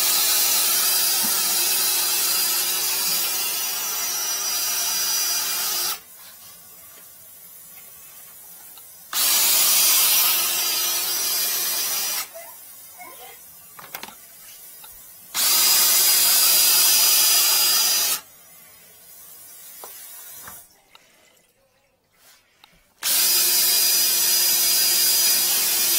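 Flex-shaft drain cleaning machine spinning its cable inside a 40 mm sink drain pipe to clear a clog. It runs in four bursts of a few seconds each, with a steady motor tone and hiss, stopping and starting again between bursts.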